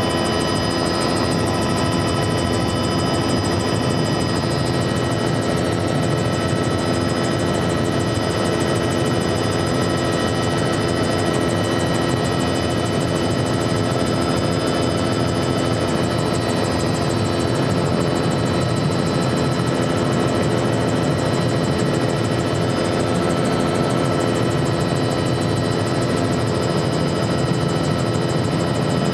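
Helicopter heard from on board in steady forward flight: a constant, unchanging drone from the engine and rotors, with several steady whining tones running through it.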